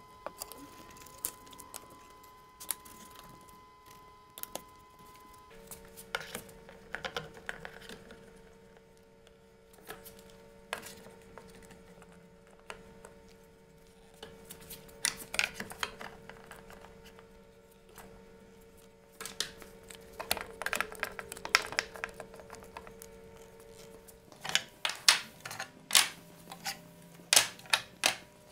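Wooden handscrew clamps knocking and clicking against a glued-up wooden board as they are fitted and tightened, with quieter taps of glue-spreading at first and a run of sharper knocks near the end. A steady low hum runs underneath until shortly before the end.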